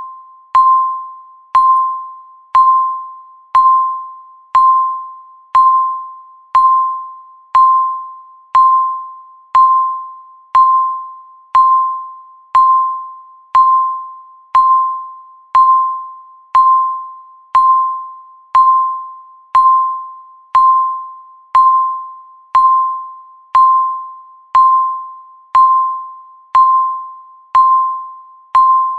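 Countdown timer beep: a single bell-like electronic tone, struck sharply and fading away, repeating once a second.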